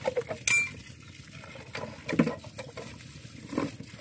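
Irregular metallic clinks and knocks, the sharpest and highest-pitched about half a second in, with no engine running.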